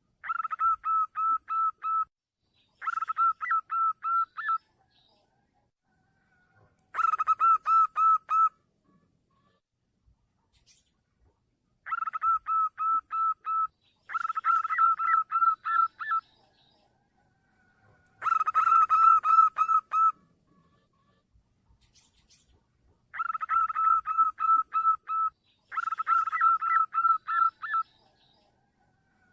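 Zebra dove (perkutut) cooing as a lure call: eight bouts of quick, evenly repeated notes, each lasting about two seconds, separated by short pauses.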